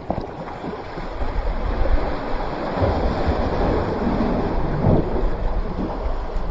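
Wind buffeting the microphone in gusts, over the steady wash of sea surf against the rocks.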